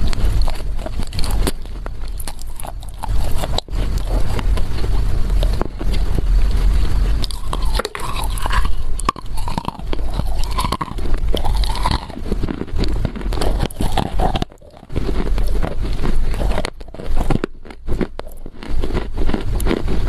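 Chewing and crunching a lump of Chinese loess clay close to a lavalier microphone held at the mouth: dense, irregular gritty crunches, with a couple of brief pauses in the second half.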